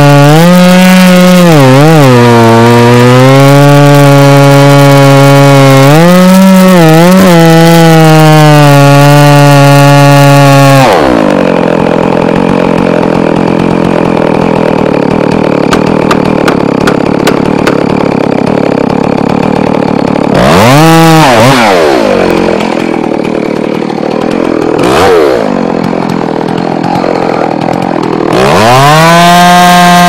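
Chainsaw running at full throttle while cutting into a large tree trunk, its engine note dipping briefly twice. About eleven seconds in it drops to idle and is revved up and down twice, then climbs back to full throttle near the end as the cut resumes.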